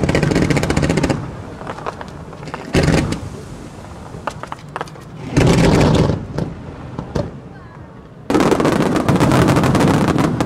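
Fireworks display: loud stretches of rapid bangs and crackling, at the start, briefly about three and six seconds in, and a longer barrage from about eight seconds in, with scattered pops between.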